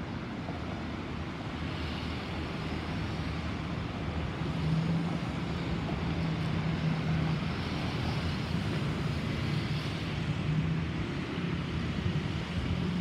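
Distant Boeing 737-800 airliner passing overhead, its CFM56-7B jet engines making a broad, steady roar that slowly grows louder. A steady low hum joins in about four seconds in.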